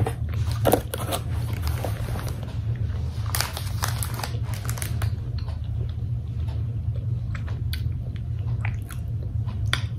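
Close-up mouth sounds of someone chewing a soft, chewy mango mochi, with small wet clicks and smacks over a steady low hum. Over roughly the first half there is also a rustle and crinkle of plastic snack wrappers being handled.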